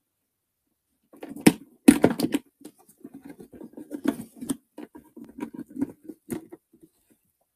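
A rhinestone-decorated purse being handled close to the microphone: it is turned over and its flap opened, giving a series of sharp clicks and knocks from its handles and hardware over soft rubbing. It starts about a second in, with the loudest knock about two seconds in.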